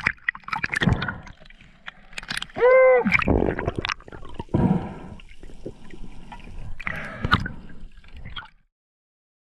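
Water gurgling and bubbling underwater, with scattered clicks and knocks. About three seconds in, a brief pitched tone rises and falls, the loudest sound here. The sound stops abruptly near the end.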